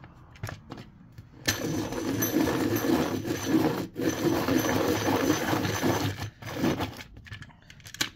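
Deli hand-cranked desktop pencil sharpener turned by its crank, shaving a square pencil: a steady grinding whir starts about a second and a half in, breaks off briefly near four seconds and stops about seven seconds in. A few light clicks come before it as the pencil is clamped.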